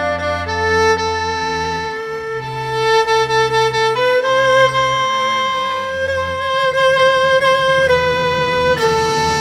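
Erhu and sheng playing a slow melody of long held notes that step to a new pitch every second or two, some with vibrato, over a low accompaniment.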